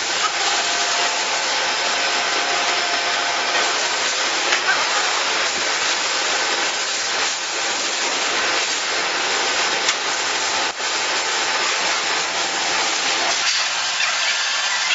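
Clear plastic roll film rustling and rubbing as it is pulled over a packaging machine's forming collar by hand, over a steady rushing workshop noise with faint hums.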